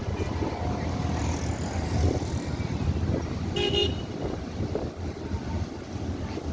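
A vehicle horn toots once, briefly, a little past the middle, over a steady low rumble.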